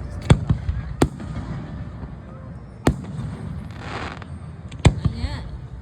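Aerial fireworks bursting: four sharp bangs, one each in the first and second seconds and a slower pair later, over a steady low rumble.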